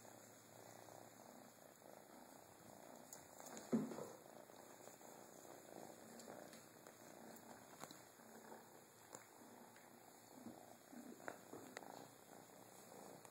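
Kitten purring softly and steadily, close to the microphone, with a single knock of handling about four seconds in.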